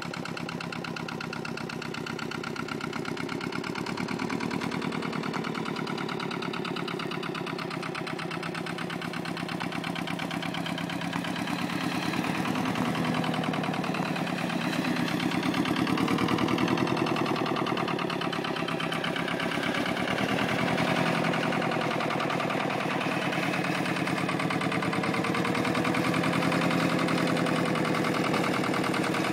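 Lister Auto-Truck's single-cylinder engine running under load as the little platform truck carries a garden playhouse. Its rapid, even firing beats go on throughout, and the engine speed wavers up and down from about halfway through.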